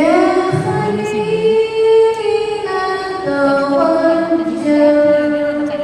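A woman's voice singing unaccompanied in long held notes: one note sustained for over two seconds, then a lower held note with small pitch turns.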